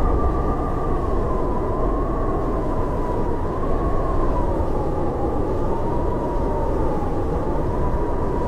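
Howling blizzard wind: a steady rush with a wavering whistle riding on top that slowly sinks in pitch.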